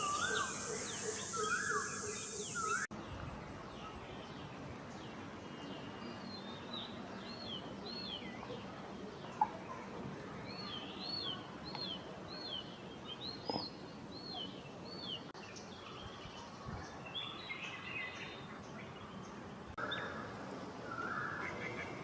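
Wild birds calling in forest: a run of short, clear, down-slurred whistled notes, roughly one or two a second, with other bird calls before and after. In the first three seconds a high, steady insect buzz runs under the calls, then cuts off suddenly.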